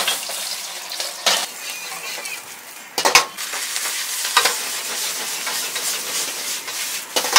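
Stir-frying in a wok over an open flame: a steady sizzle, broken by a few sharp clanks and scrapes of a metal ladle against the wok. The loudest is a quick cluster of clanks about three seconds in.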